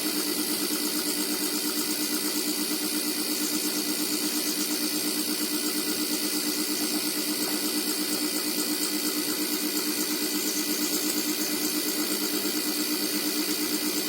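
Air-conditioner compressor rigged as an air compressor, running steadily with an even hum while it pumps air into an empty freon tank and builds pressure.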